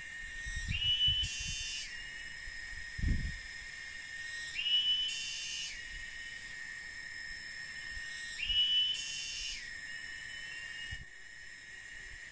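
Tropical forest insects, such as cicadas, calling: a steady high whine with a rising, buzzy phrase that repeats about every four seconds, each lasting about a second. A few dull low thumps come about one and three seconds in.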